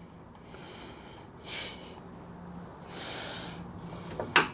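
A man breathing out heavily through his nose twice, in frustration, followed by a sharp click near the end.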